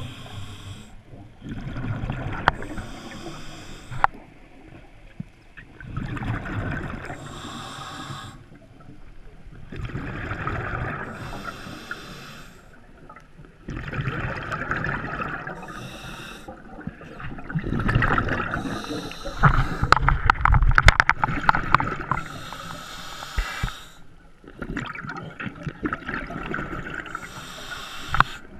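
A scuba diver's own breathing through the regulator underwater: a short hiss on each inhale, then a gush of bubbles on each exhale. The cycle repeats about every four seconds, with the bubbling loudest about two-thirds of the way through.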